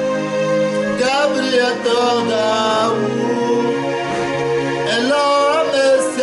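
Music: a man singing a slow melody, holding each note for about a second, over steady held instrumental notes underneath.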